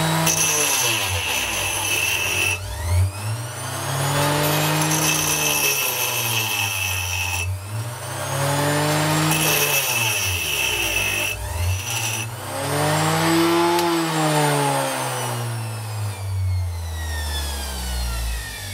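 Ferrex 120-watt mini bench grinder's carborundum wheel grinding a large steel chisel: a harsh grinding hiss in several passes, the motor's pitch dropping each time the big chisel bogs it down and rising again between passes. Near the end the motor's pitch sinks steadily.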